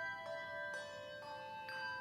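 Handbell ensemble playing a slow hymn melody. About four new bells are struck, roughly every half second, each note ringing on under the next.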